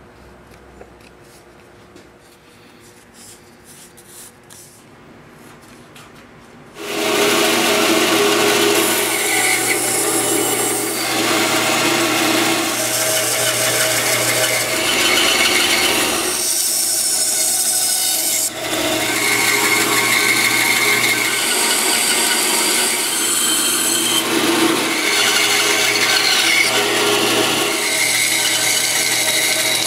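Faint handling sounds at first, then a bandsaw cutting a curve through a wooden block comes in abruptly about seven seconds in and carries on to the end. The blade rasps through the wood over a steady motor hum, easing and rising as the block is fed and turned.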